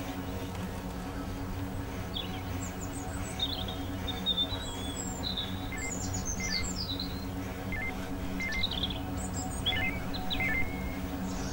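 Birds chirping and trilling, most of it from about two seconds in, over a low, steady music drone in the film score.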